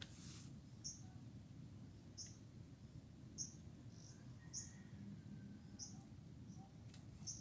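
Faint, short, high bird chirps repeating about once a second over a low, steady background rumble.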